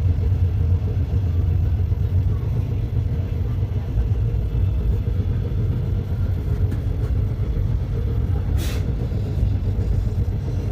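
Passenger train running with a steady low rumble, and a short hiss about eight and a half seconds in.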